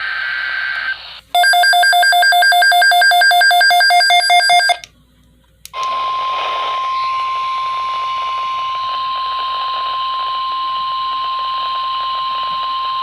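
NOAA Weather Radio alert sounding through a weather radio: about three and a half seconds of rapid, loud electronic beeping, a brief gap, then the long steady warning alarm tone over radio static. This signals a new severe weather alert, here a severe thunderstorm watch.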